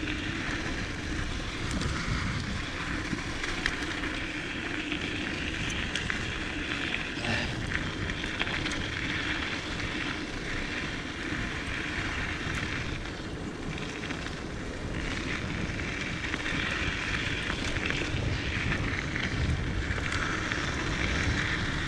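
Steady rush of wind over the microphone and tyre rumble on a dirt trail, with scattered clicks and rattles from a Diamondback Mission 2 mountain bike descending at speed.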